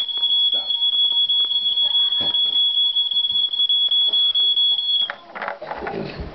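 Smoke alarm sounding a high, rapidly pulsing tone, set off by smoke from oil overheating in a pan. The alarm cuts off suddenly about five seconds in, leaving scattered knocks and rustling.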